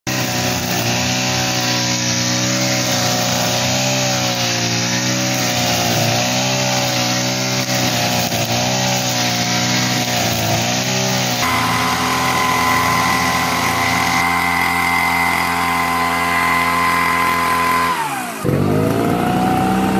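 Honda GX35 brush cutter's small four-stroke engine running at high speed, its pitch wavering up and down for the first half and then holding steady. Near the end the engine speed drops sharply for a moment and climbs straight back up.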